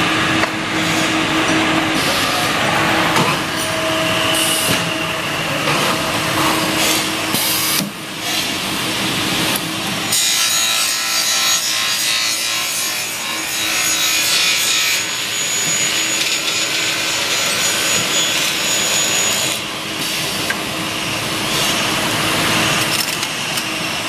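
Aluminum extrusion profiles being cut on a metal-cutting saw: continuous loud rasping saw noise over a steady machine hum. The sound changes about ten seconds in, and a thin high whine runs for several seconds.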